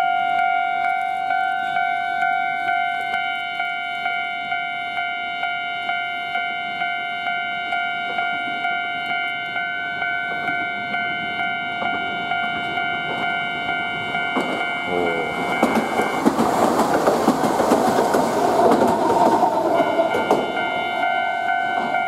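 A Japanese level-crossing warning bell ringing steadily with a regular pulsing ding. About fifteen seconds in, a Sangi Railway Hokusei Line narrow-gauge train passes, and its rumble and wheel clatter drown the bell for several seconds before the bell is heard again near the end.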